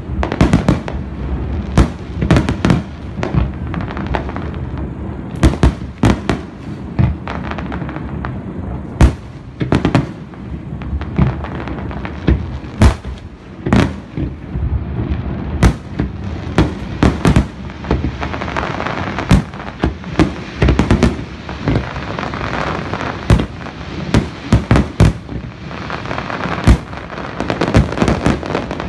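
Aerial fireworks display: shells bursting in rapid, irregular bangs over a continuous rumble of distant detonations. From about two-thirds of the way in, a dense crackle of sparkling stars fills in between the bangs.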